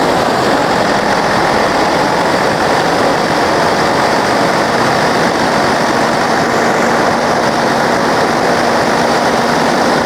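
Cummins ISX inline-six diesel engine running steadily just after start-up. The mechanic suspects a blown head gasket or dropped liner, with combustion gas pressurising the coolant system.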